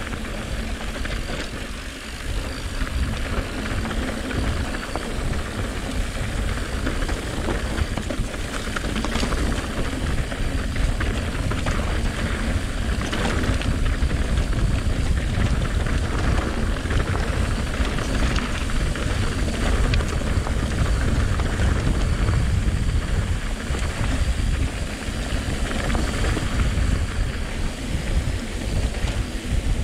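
Wind buffeting the mountain biker's camera microphone with a steady low rumble, over knobby tyres rolling on a dirt trail and scattered clicks and rattles from the bike.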